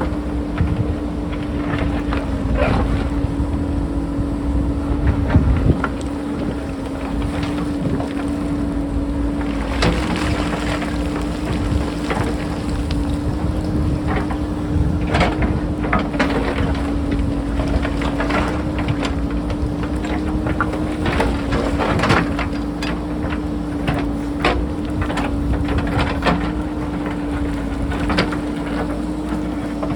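JCB backhoe loader's diesel engine running under load with a steady drone, while its bucket knocks and scrapes against rock in many short irregular hits.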